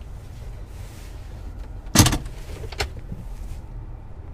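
Ford F-150's engine idling steadily, a low rumble heard from inside the cab. About two seconds in there is a sharp click, followed by a smaller one a little under a second later.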